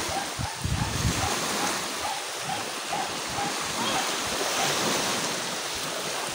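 Small waves washing in and out over a sandy shore in shallow water, a steady rush of surf. Wind buffets the microphone in gusts during the first second or so.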